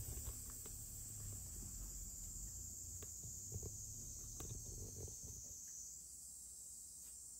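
Steady high-pitched chirring of insects, which steps up slightly in pitch about six seconds in. A few soft clicks and low bumps come through in the first five seconds.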